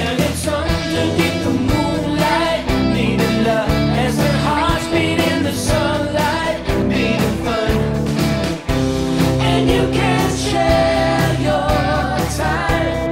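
Rock song playing with a steady drum beat; a stretch with no words sung.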